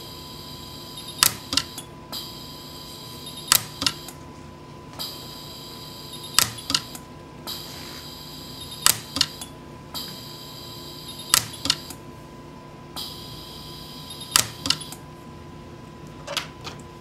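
Orion dental pulse arc welder firing weld pulses on a cobalt chrome bridge: about seven sharp snaps, roughly one every two and a half seconds, each followed by a softer second click, with a high electronic whine coming and going in between.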